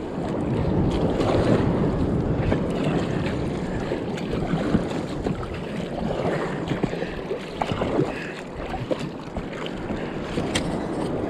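Sea water washing and sloshing against an inflatable kayak, with wind buffeting the microphone: a steady rush with scattered small splashes and knocks.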